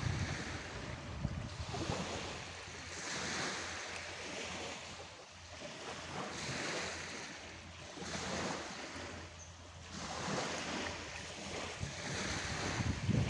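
Surf breaking and washing up the beach, each wave swelling and fading every few seconds, over a steady low rumble of wind on the microphone.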